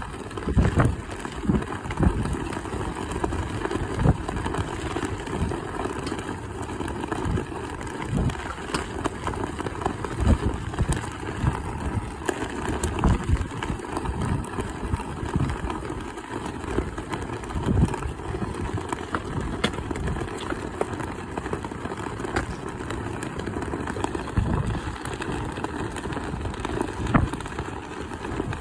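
Strong wind buffeting the microphone: a continuous low rumble with irregular gusty thumps throughout.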